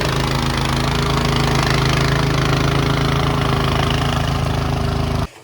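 Engine running loudly and steadily at an even speed, then cutting off suddenly near the end.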